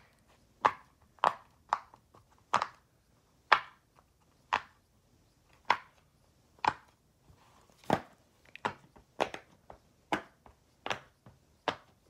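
Small plastic fidget toys being handled and set down on a hard desk: a string of sharp clicks and taps at an uneven pace, roughly one every half second to second.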